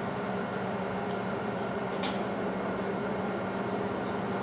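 Coal forge with its blower running: a steady mechanical hum, with a light metallic click about two seconds in.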